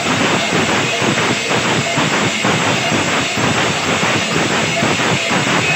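Kirtan group's music in a passage without singing: a fast, steady percussion beat under a continuous bright hiss like clashing cymbals.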